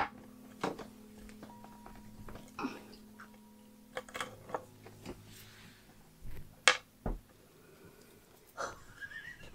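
Sparse light clicks and taps from small objects being handled at a work surface, over a faint steady hum. A few of the clicks stand out louder, about 4 s in and again near 7 s.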